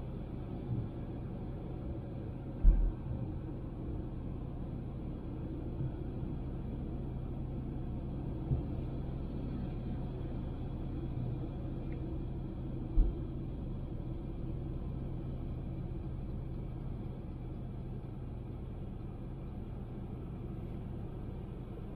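Honda Civic driving: a steady low rumble of road and engine noise with a steady low hum, broken by three brief low thumps, the loudest about three seconds in.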